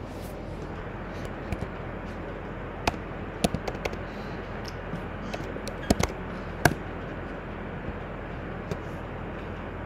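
Computer keyboard keys and a mouse clicked a few times: a cluster about three seconds in, a few more around six seconds in and one near the end. Under them is a steady hiss with a low mains hum.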